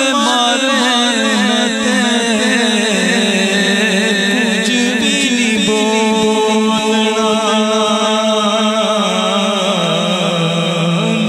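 Devotional naat sung in a chant-like style: a voice holding long, wavering, ornamented notes that run on with no break.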